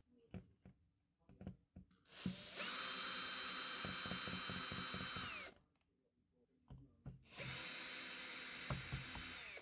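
Power drill backing out the screws of a TV speaker mount: two runs of about three seconds each, the motor whine dropping in pitch as it spins down at the end of each. Light clicks and knocks of handling come before and between the runs.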